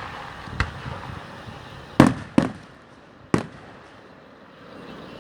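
Fireworks bursting overhead: four sharp bangs, a smaller one within the first second, the loudest about two seconds in followed closely by a second, and a last one about three and a half seconds in.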